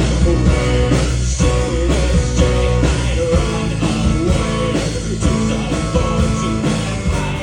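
Rock band playing an instrumental passage, with held guitar and bass notes over a steady drum beat.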